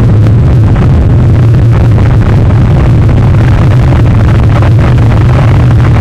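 Loud, steady low rumble of storm wind buffeting an outdoor webcam's microphone, with no break or change.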